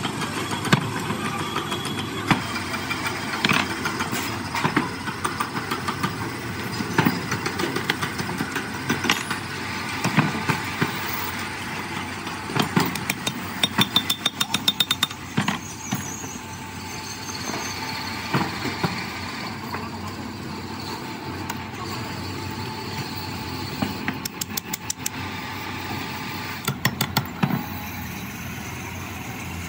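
Hammer blows ringing on metal as parts are driven into a cast-iron donkey water pump body with a hammer and brass drift: single knocks, with runs of quick taps about halfway through and again near the end, over a steady background hum.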